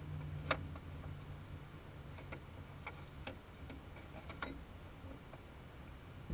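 Scattered light metallic clicks and taps from a wrench and the battery hold-down bracket as it is fitted and bolted over the car battery. A low hum underneath fades out about a second and a half in.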